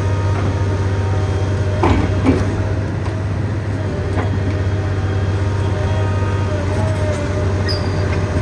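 Heavy excavator's diesel engine running steadily with a low drone and higher steady tones over it. A couple of sharp knocks come about two seconds in.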